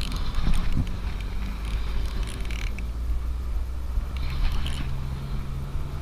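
Shimano Core baitcasting reel being wound in while fighting a hooked fish, with short bursts of reel noise over a steady low rumble.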